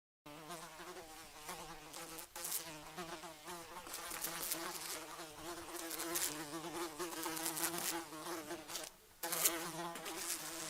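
A fly buzzing in flight, its pitch wavering up and down as it moves. The buzz starts just after the opening, runs continuously and dips briefly about nine seconds in.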